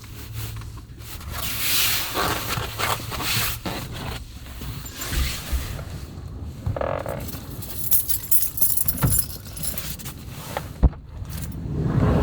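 Heavy rain and gusts of wind beating on a Subaru Sambar kei van, heard from inside the van, in swells that rise and fall, with a sharp knock about eleven seconds in.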